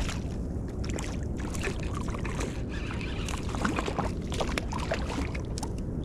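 A small sand bass splashing and thrashing at the water surface as it is reeled up beside the boat. The splashing comes as many short sharp splats over a steady low wash of water.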